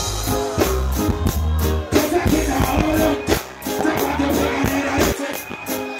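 Live reggae band played loud through a stage sound system: a heavy bass line and a steady drum beat, with a male singer's voice over it.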